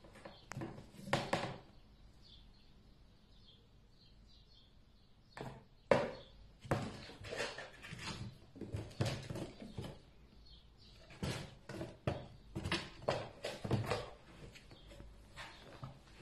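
Kittens playing with a cardboard box: a run of irregular knocks and bumps as the box is batted and pushed. There is a quieter stretch of about three seconds near the start, and the loudest knock comes about six seconds in.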